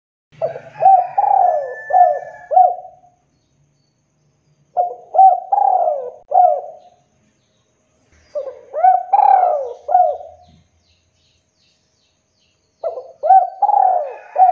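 Spotted dove (tekukur) cooing: four phrases of several quick, rounded coos each, a second or two apart, with the last phrase starting near the end.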